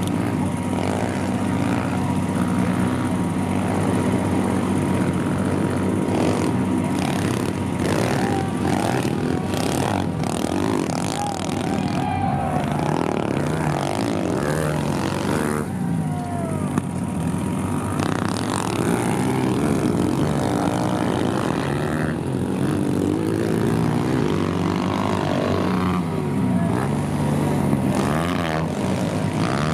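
Several 140cc pit bike engines, small single-cylinder four-strokes, revving hard and overlapping, their pitches rising and falling as the riders race.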